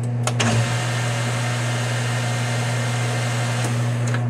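Metal lathe running with its spindle spinning a brass workpiece in a collet: a steady motor hum with an even hiss over it and a few light clicks.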